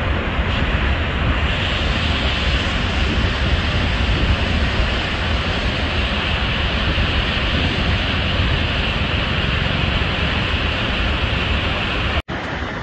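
Loud, steady rush of water pouring over the American Falls at Niagara Falls, with wind rumbling on the microphone. The sound drops out abruptly for an instant near the end.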